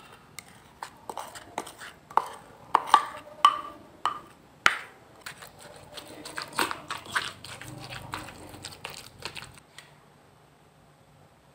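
A spoon and pestle knocking and scraping in a mortar as fermented fish paste (prahok) is scraped in and pounded together with young tamarind paste. The knocks are irregular and stop shortly before the end.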